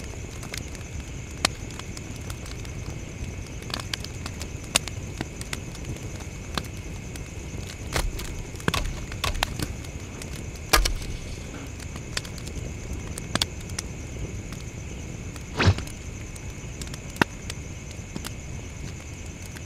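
Campfire crackling, with a steady low rumble and sharp pops scattered irregularly, over a constant high drone of chirping crickets.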